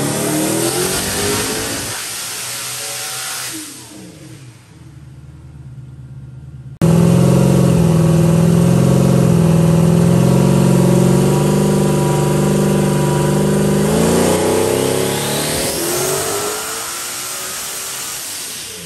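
Turbocharged LS V8 in a Honda S2000 running on a dyno. At the start the revs fall away and the engine drops to a quieter run. About seven seconds in it is suddenly loud again, holding steady revs. Near the end the revs climb with a high rising whine, then fall off.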